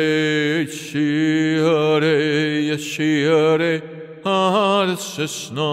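A man's voice chanting long held vowel tones in wordless, made-up syllables for sound healing, the pitch wavering slightly, with short breaks for breath about three times.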